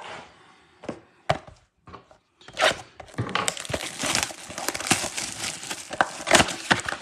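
Cardboard trading-card blaster box being handled and opened, its foil card packs rustling and crinkling as they are pulled out. A few separate taps come first, then steady crinkling from about three seconds in.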